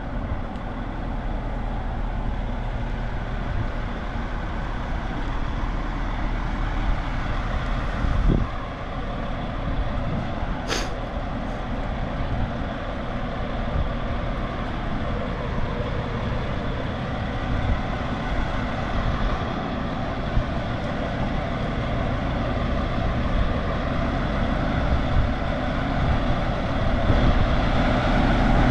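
Large truck's engine running steadily, growing louder near the end. A sharp click about ten seconds in.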